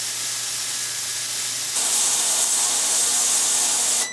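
VEVOR 22-litre ultrasonic cleaner running, a steady vibrating hiss over a faint hum. It grows louder and brighter a little under two seconds in, then cuts off suddenly at the very end as its timed cleaning cycle finishes.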